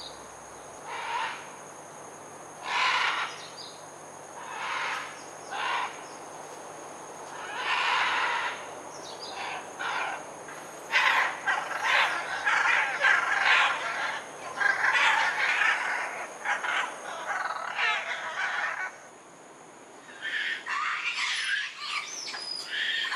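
Repeated harsh animal calls: short separate cries in the first half, then a longer, denser stretch of calling, with more calls near the end.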